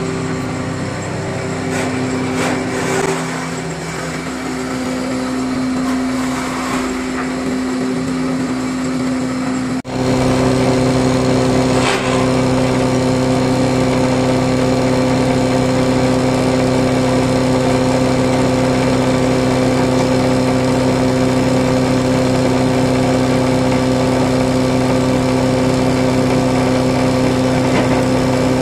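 Horizontal slot-mortising machine's electric motor running with a steady hum while its bit bores a slot in the edge of a wooden door stile. About ten seconds in the sound breaks briefly, then carries on louder and very even.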